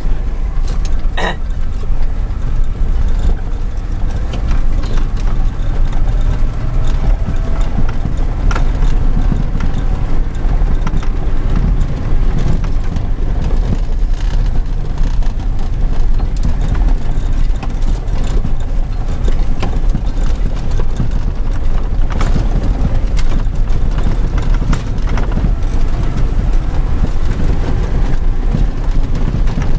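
Land Rover driving over rough grass, heard from inside the cab: a loud, steady low rumble of engine and running gear. A few sharp knocks and rattles come from the body over the bumps, one about a second in and others later.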